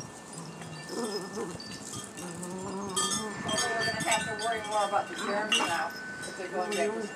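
Wind chimes ringing with long held tones. From about three and a half seconds in, puppies give short, wavering whining cries.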